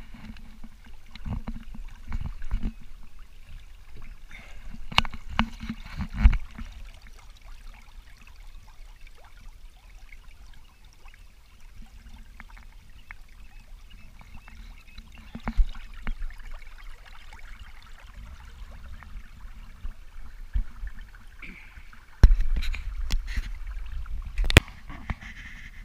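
Water trickling and lapping along the hull of a Wayfarer sailing dinghy moving slowly through calm water, with a few sharp knocks. The low rumble grows louder about three-quarters of the way through.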